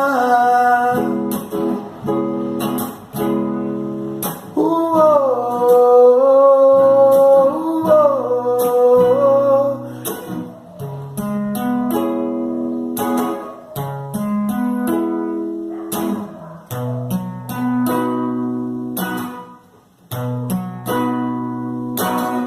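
Instrumental outro of a song: acoustic guitar picking chords, with a wordless sung line gliding over it from about four to ten seconds in.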